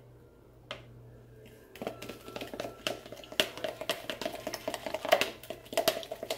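Metal spoon clicking and scraping against a plastic measuring cup of pancake batter, in rapid irregular taps that start about two seconds in.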